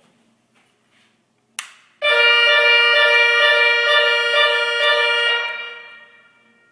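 Nugelec Type 4 fire alarm sounder going off: a loud, steady, buzzy tone starts abruptly, holds for about three seconds, then fades away. It is preceded by a short sharp burst of sound.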